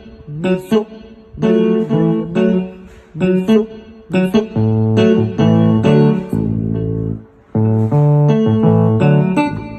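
Keyboard playing a Ghanaian Pentecostal praise pattern in short, rhythmic chords, with a lower left-hand bass line coming in about halfway through.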